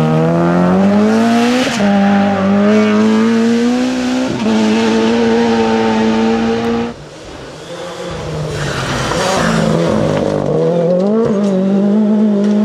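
Rally cars at full throttle: a Honda Civic rally car's engine climbs in pitch and drops at upshifts about two and four seconds in. The sound cuts off sharply about seven seconds in, then a second rally car's engine rises as it approaches flat out and shifts up near the end.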